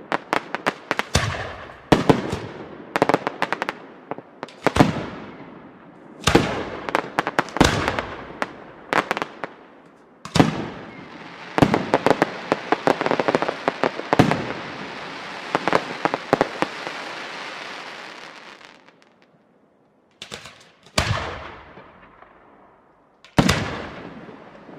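Aerial firework shells bursting in quick succession, each bang trailing off as it fades. Through the middle comes a dense stretch of crackling and hissing lasting several seconds, then after a short lull two single heavy bangs a couple of seconds apart near the end.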